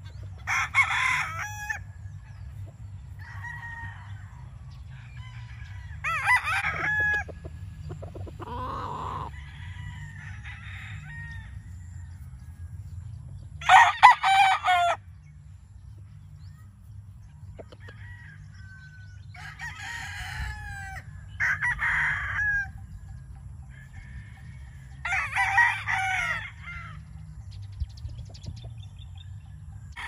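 Gamecock roosters crowing repeatedly, about seven crows from different birds at different distances, the loudest about halfway through, over a steady low rumble.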